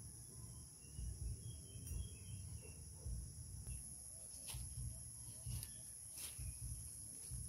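Steady high-pitched insect chorus with a few sharp snaps in the second half and low thuds underneath.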